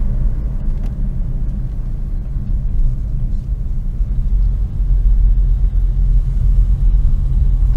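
Steady low rumble of a car driving along, heard from inside the cabin: engine and tyre noise, rising slightly about five seconds in.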